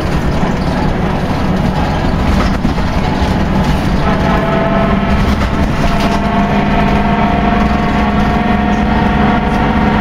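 Volvo B10BLE single-decker bus running on the road, heard from inside the saloon: a loud, continuous drivetrain rumble that sounds like a washing machine, with a steady whine coming in about four seconds in. The uploader guesses the differential has gone, and maybe something else too.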